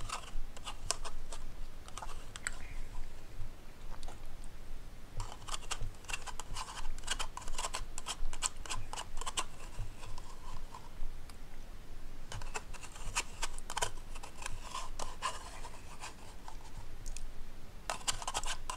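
Spoon scraping and clicking against the inside of a yogurt cup, in several bursts a few seconds long with short pauses between.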